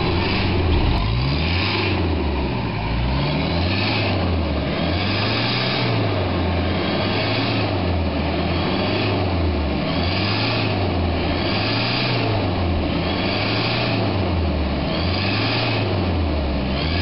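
Mitsubishi Delica's diesel engine being revved over and over, its pitch rising and falling about every two seconds with a rush of noise on each rev.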